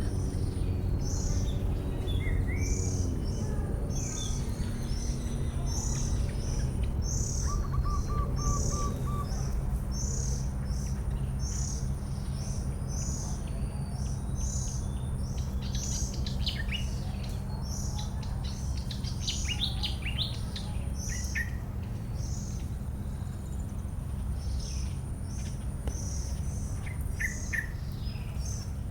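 Birds calling: a short high chirp repeating about once a second, with a cluster of quick, varied chirps about halfway through, over a steady low rumble.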